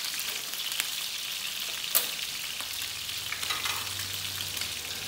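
Pork ribs sizzling as they fry in a frying pan, stirred with wooden chopsticks that click against the pan, with one sharp knock about two seconds in.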